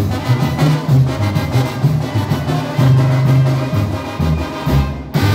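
Band music with brass and drums: a bass line stepping from note to note under a steady beat. It breaks off with a sudden loud hit near the end.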